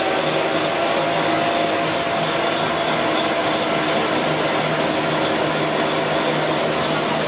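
YT-2 two-colour printing machine running, printing and winding PE plastic film: a steady mechanical whir and hum.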